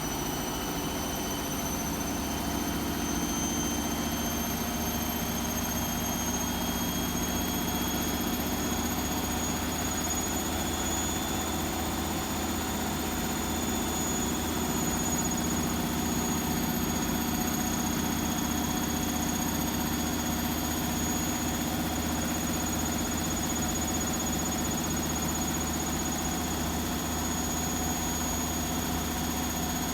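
Hotpoint WMFUG742 washing machine spinning a heavy load of towels: a steady motor whine with a low drum rumble, rising slightly in pitch over the first several seconds, then holding steady.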